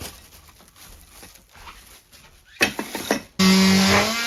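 Faint handling clicks, then a sharp click, and about three and a half seconds in a hand-held power drill starts running loudly with a steady whine that rises slightly and then sags.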